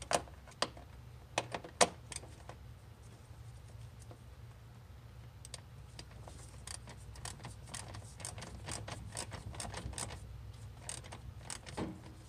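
Ratchet with a 10 mm socket loosening the screws on a radiator fan shroud: a few sharp clicks and knocks in the first two seconds, then a long run of quick ratchet clicks from about halfway through. A steady low hum runs underneath.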